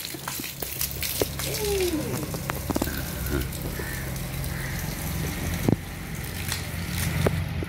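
Water from a garden hose splashing steadily onto paving stones, with scattered small splatters, over a low rumble.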